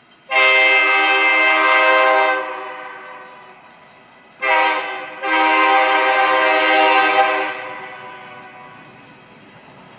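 Diesel freight locomotive's air horn sounding a long blast, a short one and another long one as the train approaches. A low rumble of the oncoming train builds near the end.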